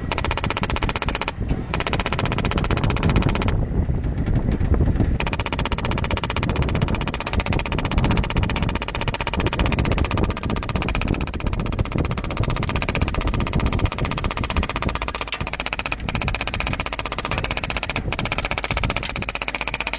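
Rapid full-auto airsoft gunfire, a fast continuous rattle of shots, with brief pauses about a second in and again around four seconds in, over the low rumble of the vehicle.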